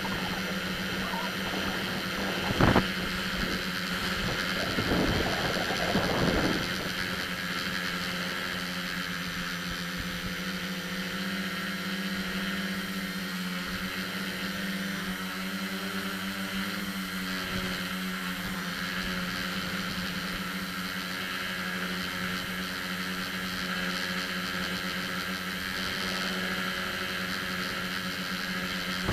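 Multirotor drone's electric motors and propellers heard from its onboard camera, a steady whirring hum whose pitch shifts slightly as the throttle changes. There is a sharp knock about three seconds in and a brief louder rush around five to six seconds in.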